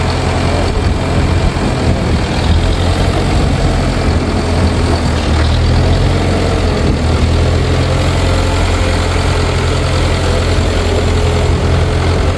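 1960 International B275 tractor's four-cylinder diesel engine idling steadily.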